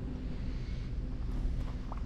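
Car driving: a steady low engine and road rumble.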